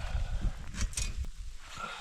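Collapsible snow shovel digging into packed snow, a few short scraping, crunching strokes over the low rumble of wind on the microphone.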